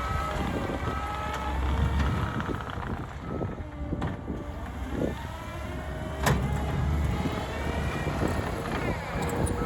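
Diesel engine of an earthmoving machine running and working while grading, its pitch shifting up and down, with short beeps from a backup alarm and one sharp clank about six seconds in.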